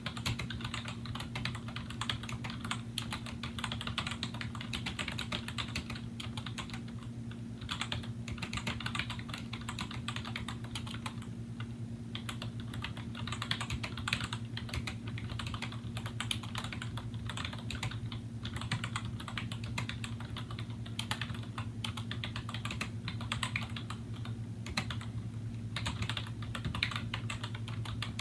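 Continuous fast typing on a 2000 Apple M7803 Pro Keyboard, its Mitsumi rubber-dome keys with integrated sliders clattering in quick runs with a few brief lulls. A steady low hum runs underneath.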